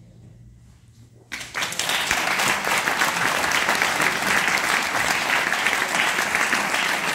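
The last chord of a nylon-string classical guitar rings out faintly, then about a second in the audience starts applauding, a full, steady clapping that carries on.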